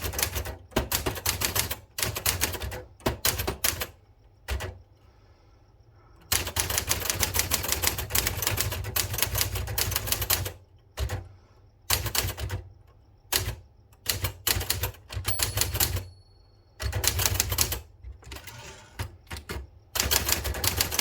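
Keys of a 1970 Citizen X3 manual typewriter striking in fast runs of clicks, in several bursts of typing separated by short pauses.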